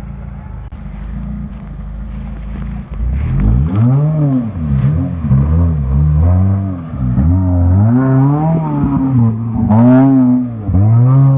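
Suzuki Gypsy 4x4's engine revving: a low rumble for about three seconds, then the revs climb and drop again six or seven times in quick succession.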